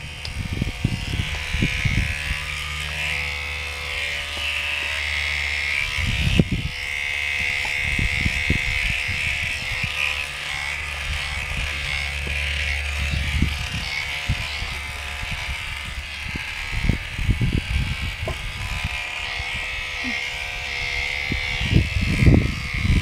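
Electric horse clippers running with a steady buzz while clipping hair and whiskers under a horse's jaw and muzzle. Brief low thumps come now and then.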